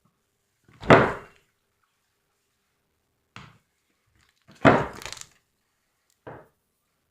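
A few short knocks and thuds: a loud one about a second in, a faint one, a loud quick cluster of several hits near five seconds, and a last faint one.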